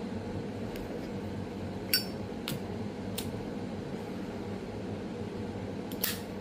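Steady low machine hum in a small room, with a handful of short, light clicks and clinks from things being handled; the sharpest click comes about two seconds in.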